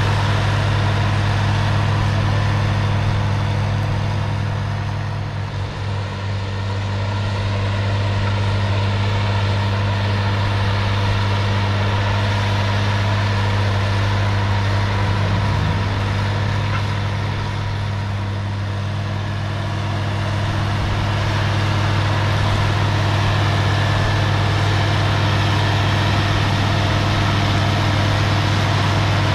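International Harvester 1566's turbocharged six-cylinder diesel running steadily under load as the tractor pulls a tandem disc harrow through the field. A deep, even engine drone that dips slightly in loudness twice.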